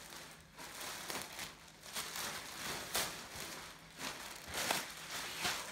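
Thin clear plastic wrapping bag crinkling and crackling as a backpack is pulled out of it, in uneven rustles with sharper crackles every second or so.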